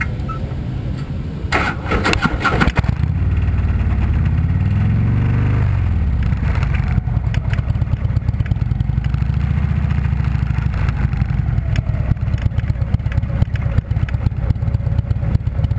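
Harley-Davidson Street Glide's V-twin engine running at idle, with one rev that rises from about four seconds in and drops back near six seconds. A brief clatter sounds about two seconds in.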